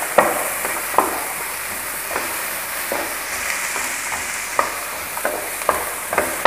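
Chicken, sliced bell peppers and onion sizzling steadily in a frying pan as they are stir-fried with a wooden spatula, the spatula knocking and scraping against the pan at irregular intervals.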